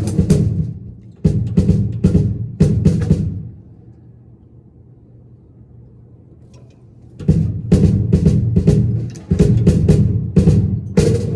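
Drum kit being struck during a sound check: a few seconds of hits, a pause of about four seconds, then playing starts again about seven seconds in and continues with quick strokes.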